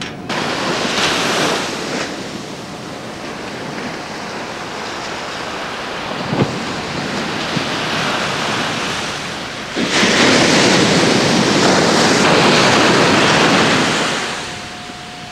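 Ocean surf breaking and washing up a sandy beach, swelling about a second in and again, longest and loudest, from about ten to fourteen seconds in before it falls away.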